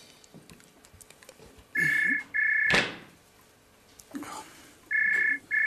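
Telephone ringing twice, each ring a pair of short electronic trills. A sharp knock sounds at the end of the first pair.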